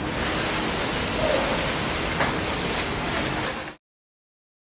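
Propeller wash of a ferry churning the water in its dock slip, a steady rushing of water with a faint low engine hum beneath. The sound cuts off suddenly about four seconds in, leaving silence.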